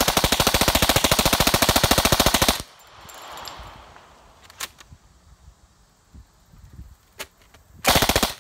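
Thompson submachine gun in .45 ACP, fed from a 100-round C drum, firing a long fully automatic burst that stops about two and a half seconds in. A few clicks follow while the gun is worked, then a short burst near the end. The stop is a stoppage, which the shooter calls 'ain't working'.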